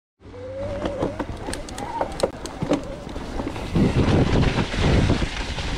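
Mountain bike riding along a muddy dirt trail: tyres rolling over the ground, with sharp clicks and rattles from the bike over the first few seconds, then a louder rumble from about four seconds in as the going gets rougher.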